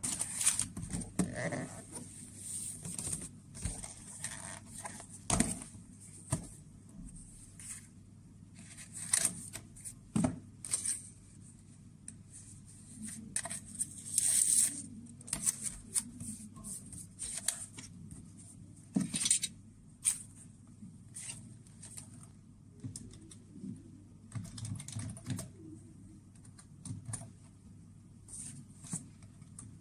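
A paper mailer envelope and a folded yellow paper slip being handled and opened on a desk: irregular paper rustles and crinkles, the loudest crackle about halfway through.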